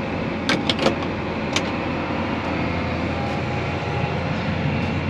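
John Deere 8R 370 tractor running steadily, heard from inside its cab as it drives across the field, with a few brief clicks in the first second.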